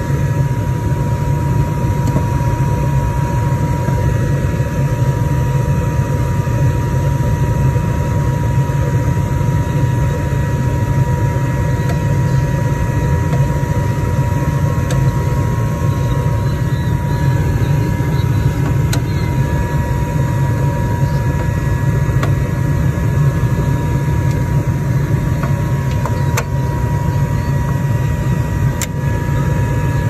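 Gas furnace running with its fans on: a steady, even fan noise and low hum with a steady whine above it, with a few faint clicks in the last third.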